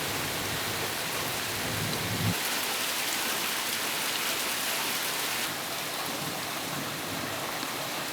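Steady hiss of falling rain, changing abruptly in character about two seconds in and again past the middle.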